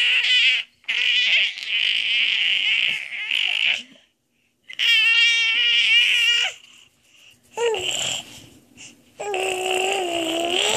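Baby squealing and babbling: a string of long, high-pitched, wavering squeals with short breaks between them, the last two, near the end, lower in pitch.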